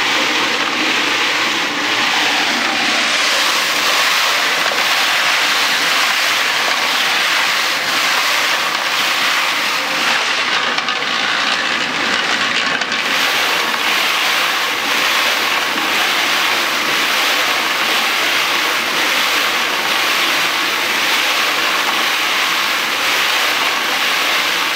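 Scheppach cement mixer turning a perforated stainless-steel washing-machine drum fitted as a sieve, sieving ballast. The stones rattle and grind steadily inside the metal drum.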